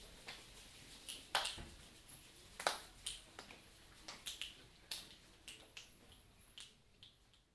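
A class of pupils snapping their fingers to imitate rain: scattered, uneven snaps that grow sparser and quieter toward the end, the shower dying away as the hand-made rainstorm finishes.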